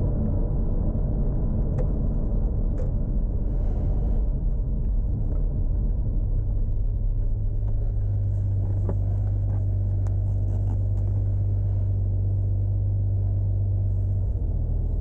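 Turbocharged Toyota Supra Mk4 2JZ straight-six running at low, steady revs with a continuous low drone. The drone settles into an even, unchanging hum about halfway through.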